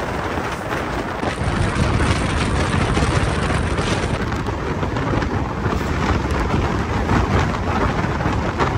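Indian Railways LHB passenger coach running at speed, heard from on board: a steady rumble and rattle of wheels on the track.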